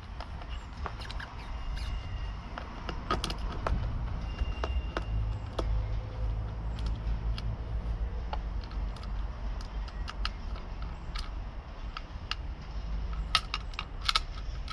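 Scattered light clicks and rattles of a hand screwdriver, small screws and a metal plate being undone and handled under a motorcycle seat, over a steady low rumble.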